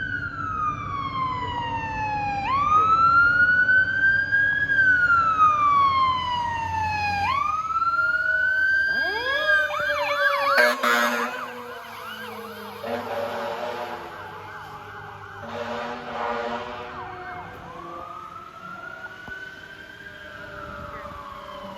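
Fire engine's siren wailing in slow rising and falling sweeps, then switching to a rapid yelp about eight seconds in, with air horn blasts sounding through the middle. It grows fainter after the middle, and a slow wail returns near the end.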